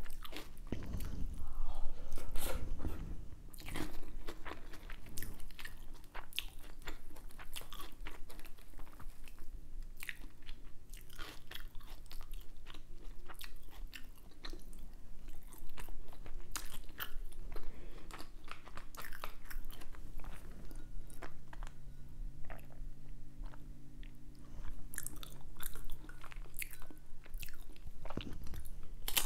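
Close-miked eating of Indian food: chewing and biting with many small wet mouth clicks and smacks, and a few crunchy bites.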